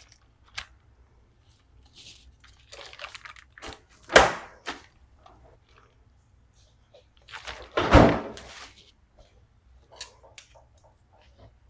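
Plastic bacon packaging being opened and handled, with light crinkling and two louder thunks about four and eight seconds in.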